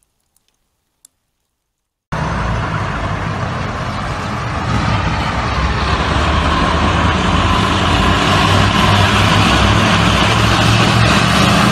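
Near silence for about two seconds, then steady street traffic and vehicle engine noise with a low rumble, growing slightly louder over the next few seconds.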